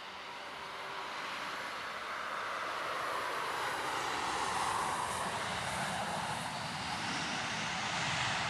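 Airbus A319 airliner touching down and rolling out along the runway: the rushing noise of its jet engines grows louder over the first few seconds and then stays strong, rising in pitch toward the end.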